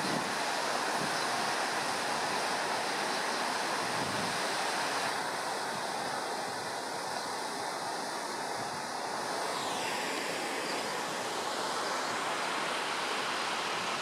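Steady rushing of a swollen, muddy river in flood, churning around concrete bridge piers, with wind buffeting the microphone.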